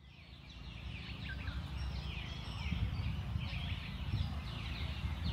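Birds calling in the trees, a run of short, falling chirps repeated every second or less, over a steady low rumble. The sound fades in over the first second or so.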